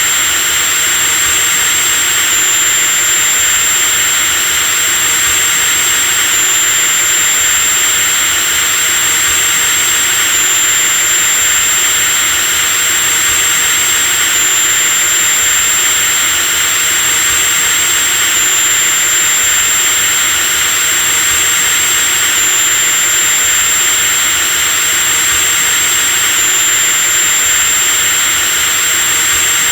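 Electric drill motor running continuously at constant speed, an even mechanical noise with a steady high-pitched whine.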